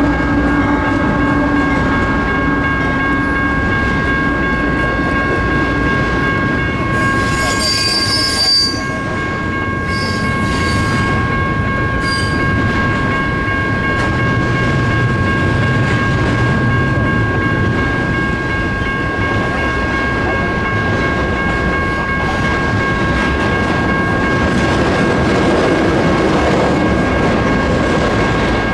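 A train rolling through a railroad grade crossing while the crossing signal's bell rings steadily. A brief high-pitched wheel squeal comes about eight seconds in.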